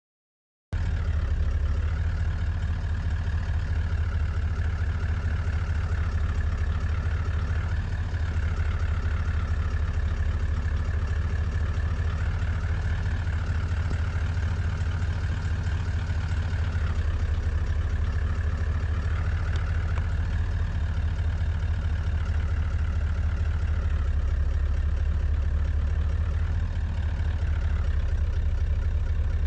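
Toyota Land Cruiser 79's engine idling with a steady low hum, cutting in abruptly under a second in.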